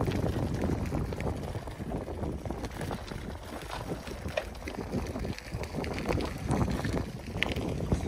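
Wind buffeting the microphone of a bike-mounted phone, over bicycle tyres rolling on a gravel path with many small ticks and rattles.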